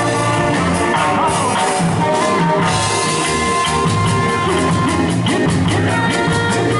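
A live ska band playing: electric guitar, bass and drum kit with a horn section of saxophones and trombones. A held horn note runs through the middle, and quick hi-hat strokes come in during the second half.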